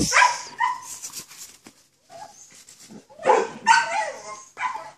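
A dog barking and whining: a couple of short calls at the start, then a cluster of them in the second half.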